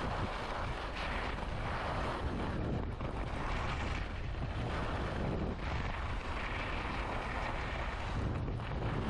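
Wind rushing over the microphone, mixed with the hiss and scrape of skis on snow during downhill skiing, swelling and fading every second or two with the turns.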